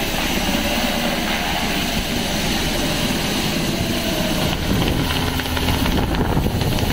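Black Hawk helicopter taking off and climbing away overhead: its twin turboshaft engines and main rotor blades make a loud, steady noise, growing slightly louder near the end.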